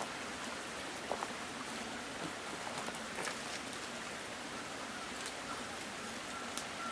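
Faint steady outdoor background hiss with a few faint scattered clicks.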